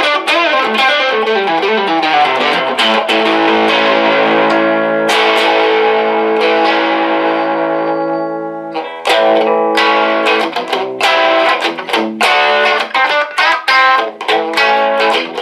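1959 Fender Duo-Sonic electric guitar, with its original pickups, played through an amplifier. A quick picked run of notes and chords leads to a chord left ringing about five seconds in, which fades away. Just before the nine-second mark, choppy, stop-start picked chords and single notes take over.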